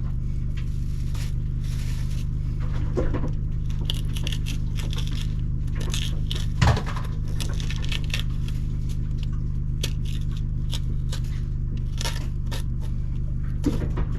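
Light scraping and tapping of a plastic spoon scooping the seeds and membranes out of halved jalapenos on a cutting board, with a couple of soft knocks. A steady low mechanical hum runs underneath.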